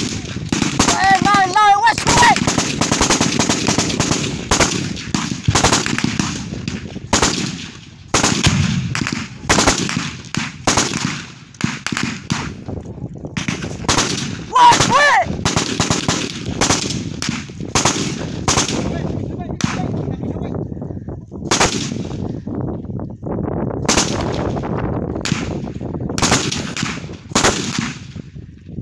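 Sustained automatic gunfire in a firefight: many rapid bursts overlapping almost without pause, thinning briefly about two-thirds of the way through.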